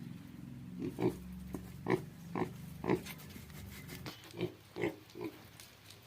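Piglets grunting: a run of short separate grunts, about two a second.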